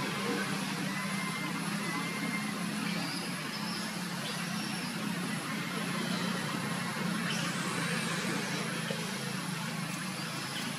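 Steady low hum of an engine, like a vehicle running or idling, under outdoor background noise, with a few faint high chirps.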